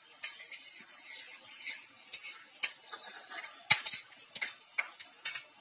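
Metal spatula scraping and clinking against a metal kadai as it stirs whole spices (bay leaves, cardamom, cinnamon, peppercorns, cloves) in hot mustard oil. The strokes are irregular and grow sharper and more frequent in the second half, over a faint sizzle of the oil.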